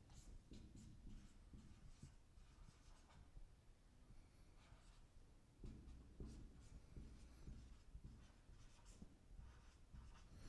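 Faint strokes of a marker pen writing words on a whiteboard.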